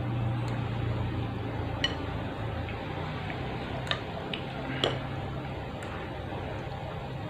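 Cutlery clicking against a bowl three times, at about two, four and five seconds in, over a steady low hum.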